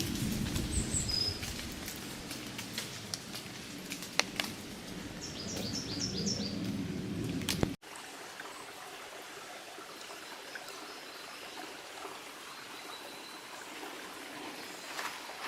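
Beech-wood stream running with a steady rush, with scattered light ticks of autumn leaves landing. A small bird gives brief high chirps near the start and a quick run of about five high chirps about five seconds in. The sound cuts abruptly about halfway through to a quieter, thinner rush of the stream.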